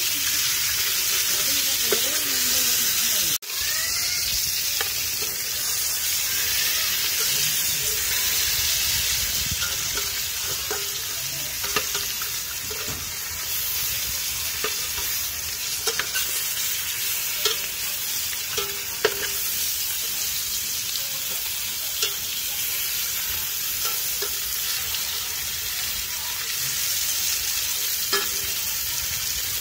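Whole fish frying in oil in a stainless steel pot, with a steady sizzle. A metal ladle and spatula scrape and clink against the pot as the fish are turned. The sound cuts out for a moment about three seconds in.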